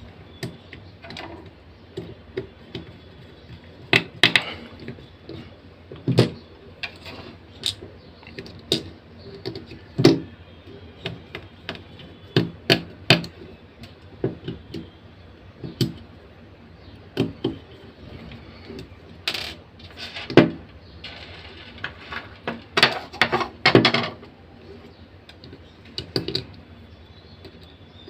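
Irregular clicks, taps and small clatters of plastic and metal parts being handled and fitted by hand in an opened electric hair trimmer; the motor is not running.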